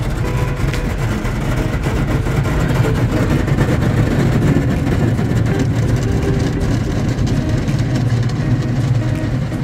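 Automatic car wash machinery running while foam is sprayed over the car, heard from inside the car: a steady low rumble under a constant wash of spray noise.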